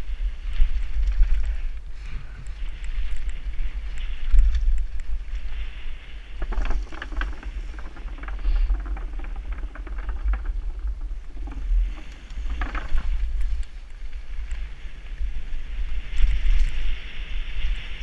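Wind rumbling over a helmet-mounted camera on a downhill mountain bike, with the rattle of the bike and its tyres on a dirt trail. For several seconds in the middle the tyres clatter over the planks of a wooden bridge.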